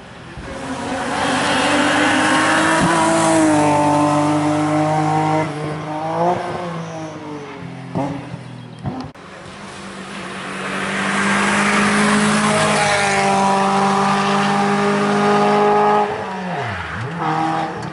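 Hill-climb race car engines at full throttle, each growing louder as it approaches, with pitch jumps at the gear changes. There is a sharp break about nine seconds in, then another engine builds to a loud, steady note. Near the end that note falls steeply as the throttle is lifted.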